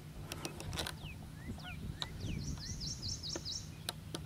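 Wild birds calling from the shore: a few short falling whistles, then a fast run of about eight high chirps in the middle, with some sharp short calls at the start and near the end. A steady low rumble runs underneath.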